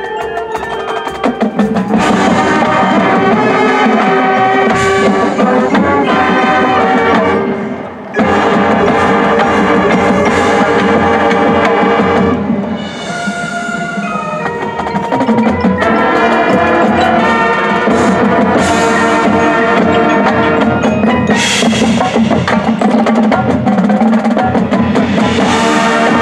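High school marching band playing: brass and drumline over a front ensemble of marimbas and vibraphones. The music breaks off briefly about eight seconds in, thins out for a couple of seconds near the middle, then the full band comes back in.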